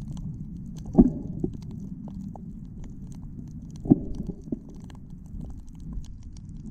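Muffled underwater noise picked up by a submerged camera: a steady low rumble, with dull thumps about a second in and again near four seconds, and faint scattered ticks.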